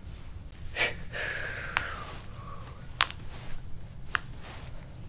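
Quiet handling sounds: a breath through the nose and three sharp clicks spread over a few seconds while hands grip a bare foot through a paper towel.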